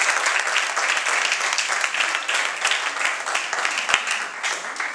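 Audience applauding, a dense patter of many people's hand claps that tapers off near the end.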